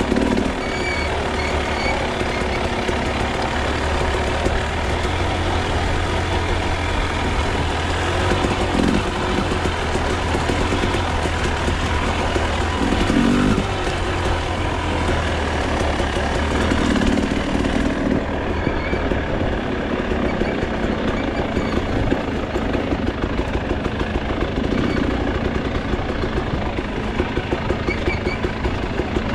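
KTM enduro dirt bike engine running as the bike is ridden along a trail, with changing revs and the bike rattling. In the later part, more frequent sharp knocks come through as the bike crosses loose rocks.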